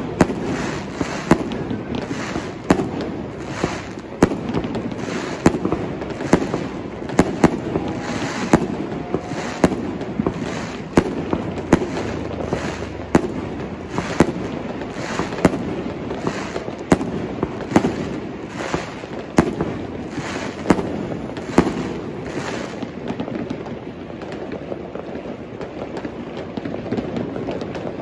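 Fireworks bursting overhead: a string of sharp bangs, about one a second, over a steady background rumble. The bangs thin out near the end.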